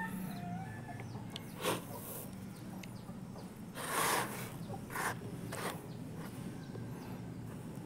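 Raw rice grains rustling as hands stir and pick through them on a woven bamboo tray, in several short bursts, the loudest about four seconds in. Faint animal calls are heard near the start.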